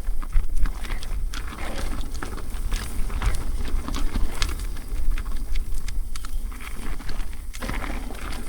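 Mountain bike riding downhill on a dirt trail, with wind rumbling on the microphone over tyre noise. Frequent irregular clicks and rattles come from the bike over bumps.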